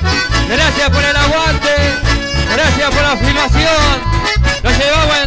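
Live band playing: two button accordions carry the melody over strummed acoustic guitars, with a steady, evenly alternating bass line underneath.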